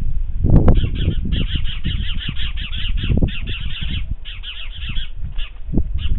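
A bird's rapid series of short, harsh calls in quick bursts, about six to eight notes a second, over a low rumble, with a sharp knock about half a second in.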